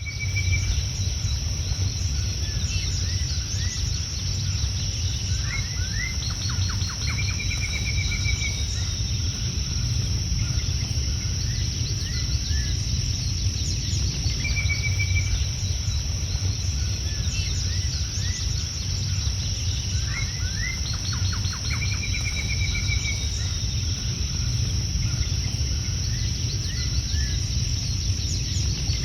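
Nature ambience: scattered bird chirps and short trills over a steady high insect drone and a low rumble, the same run of calls repeating about every 14 seconds.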